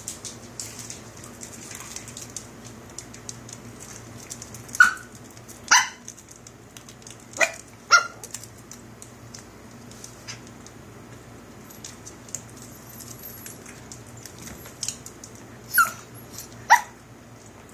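Small puppy giving short, high play barks during a tussle over a toy. There are six barks in three pairs, each pair about a second apart.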